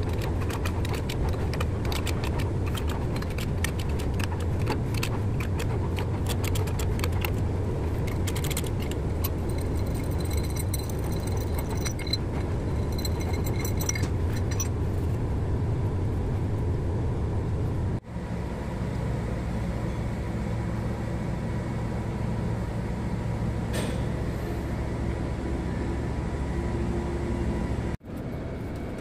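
Steady low workshop rumble with irregular metallic clicks and clinks of a socket and extension working the bolts at a diesel engine's front gear housing, busy through the first half and then thinning out.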